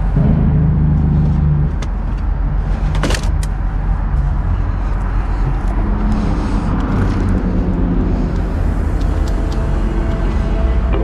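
Semi truck diesel engine idling steadily, with a few short clicks and knocks, one sharp one about three seconds in.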